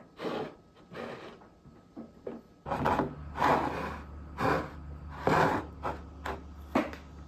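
Cucumber spears squeaking and scraping in a series of short rubs as they are crammed tightly into a jar. About two and a half seconds in, a refrigerator starts up with a steady low hum underneath.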